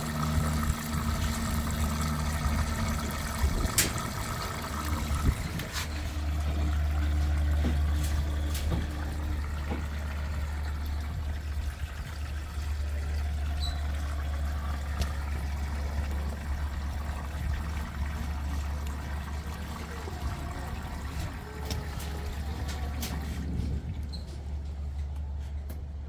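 Samsung ecobubble 8 kg front-loading washing machine filling with water, the water rushing through the detergent drawer into the drum over a steady low hum from the machine. The rushing water dies down near the end.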